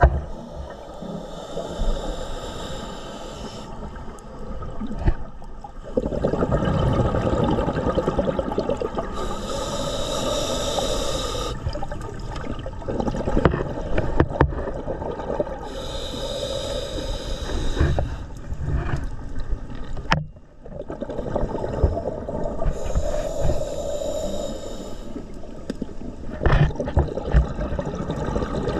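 Scuba regulator breathing heard underwater: a hissing breath about every seven seconds, with exhaled bubbles gurgling and rumbling in between.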